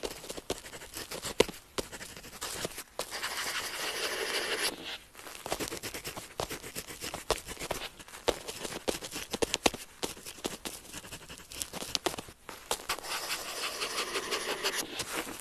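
Pen tip writing on paper: quick short scratching strokes and light ticks, with a longer continuous scratch about three seconds in and another near the end.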